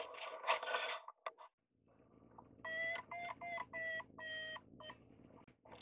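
Flytec variometer beeping: five short beeps of one steady pitch in quick succession, after a second of rustling handling noise at the start.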